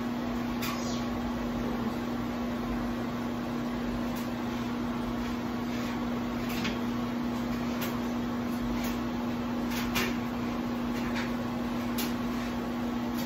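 Steady motor hum of a bathroom exhaust fan. Every second or two comes a short scratchy stroke of a hairbrush through hair.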